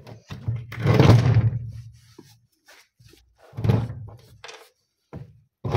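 Wad of cotton waste scrubbed hard over an electric winch's metal housing in three bouts of rubbing, with thunks as the housing shifts on the workbench.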